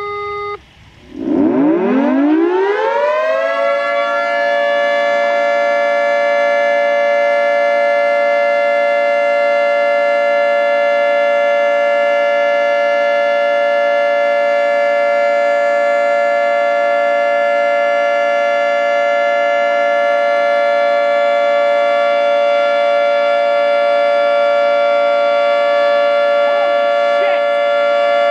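Federal Signal 3T22 three-tone outdoor warning siren starting up: just under a second in, a steady tone stops, and the siren's chord winds up in pitch over about three seconds. It then holds a loud, steady chord, the Alert signal of a siren test.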